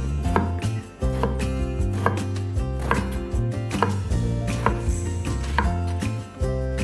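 Chef's knife dicing a peeled vegetable on a wooden cutting board: crisp blade strikes against the board at an even pace of about two to three a second.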